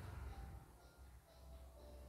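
CNY computerized embroidery machine's stitching noise dying away in the first half second. Then near silence with a faint steady low hum while the machine sits powered and idle.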